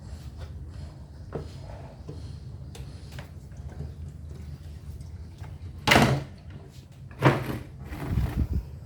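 A few loud knocks and clatters, the loudest about six seconds in and again a second later, with a short cluster near the end, over a steady low hum.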